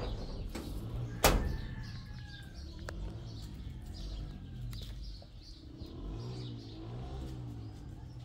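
Small birds chirping over and over in short high notes, above a low steady hum. A single sharp knock about a second in is the loudest sound.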